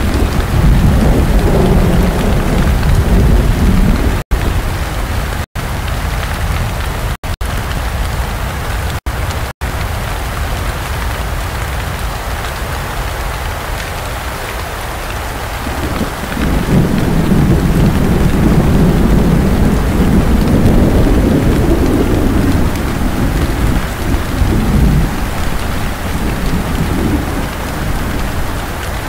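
Heavy rain in a cyclone storm, with strong wind gusting against the microphone as a low rumble. The gusts are loudest in the first few seconds and again from about 16 to 25 s. The sound cuts out briefly a few times between about 4 and 10 s.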